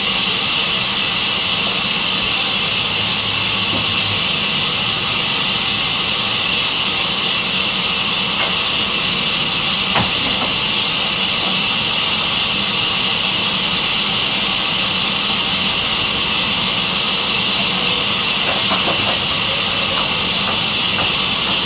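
Sawmill saw machine running, a steady hiss-like machine noise that does not change, with one faint click about ten seconds in.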